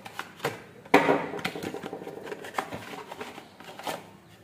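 Hands handling a plastic LED fog lamp and its packaging: a few light clicks, a sharp knock about a second in, then clattering and rustling for a couple of seconds.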